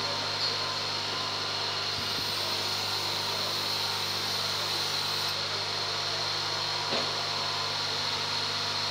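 Steady electric machine hum at an even level, with a couple of faint metal clicks, one about two seconds in and one about seven seconds in, from wrench work on the cylinder head studs.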